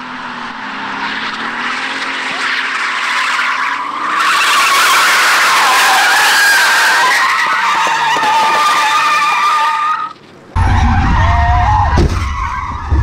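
BMW E36 Compact drifting, with tyres squealing loudly and the engine revving. About ten seconds in the sound switches to inside the car's cabin, where a deep engine and tyre rumble takes over and a sharp knock comes near the end.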